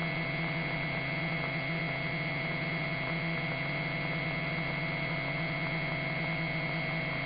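Steady electrical hum and hiss of an aircraft radio and intercom channel between transmissions, with a few constant tones and no change throughout.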